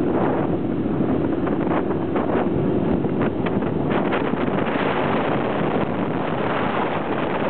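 Wind buffeting the microphone on a moving motorcycle, over the steady hum of the motorcycle's engine.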